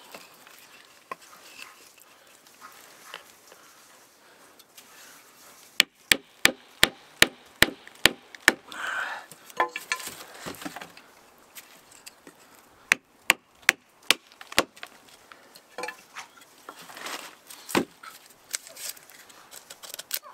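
Wooden wedges being driven into a split birch log: a run of about eight sharp knocks at about three a second, then after a pause a second run of about six. Softer clicks and rustles of wood being handled fill the gaps.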